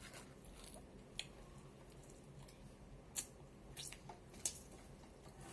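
Faint sounds of eating: a handful of short, soft clicks and smacks scattered through, over quiet room tone.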